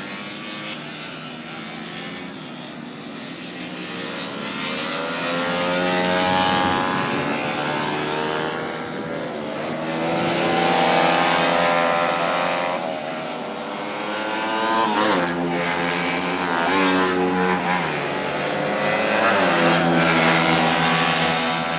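Several 70cc racing motorcycles running at high revs as they go by on the track, their engine pitch rising and dropping as they accelerate and shift. The sound swells and fades about four times as bikes pass.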